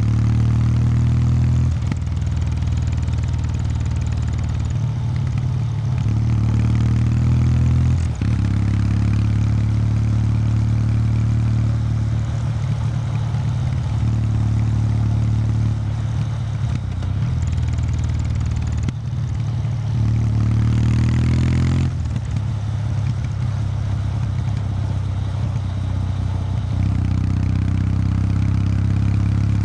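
Kawasaki W800 Street's air-cooled parallel-twin engine through its stock exhaust, running steadily, its note shifting up and down every few seconds with throttle and gear changes, with a brief rise about two-thirds of the way in.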